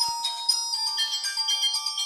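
Siemens SF65 clamshell phone playing a polyphonic MIDI ringtone through its loudspeaker: a quick melody of bright, high synthetic notes. A single click sounds just after the start.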